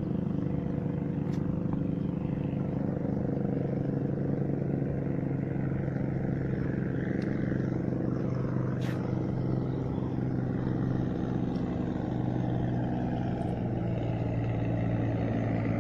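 An engine running steadily at constant speed, a low even drone that neither rises nor falls.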